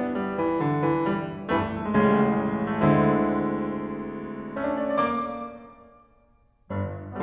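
Solo grand piano playing classical music: notes and chords ring out and fade away almost to silence, then a sudden loud chord breaks in near the end.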